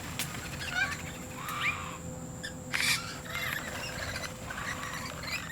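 A mix of wild birds chirping and calling, with many short overlapping chirps. A brief harsh, noisy call comes about three seconds in.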